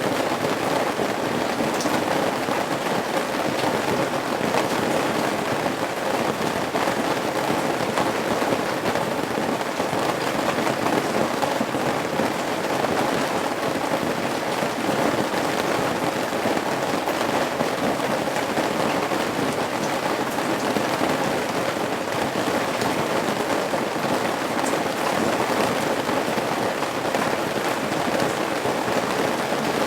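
Steady rain falling and dripping off the eaves of a roof, a dense even patter with scattered sharper drop ticks.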